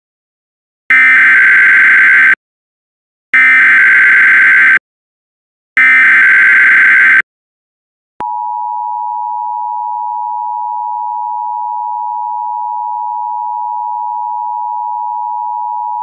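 Emergency Alert System tones heralding a severe thunderstorm warning: three loud bursts of the SAME digital header, a screeching data warble, then the steady two-tone attention signal sounding for about eight seconds.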